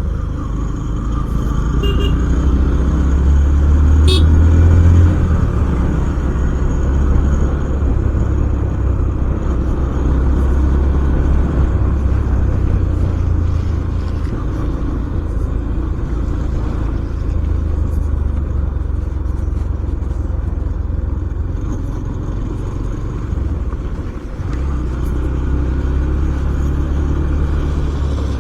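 Yamaha FZS-V4's single-cylinder engine running under way, a steady low rumble that rises and falls a few times with throttle, dipping briefly near the end.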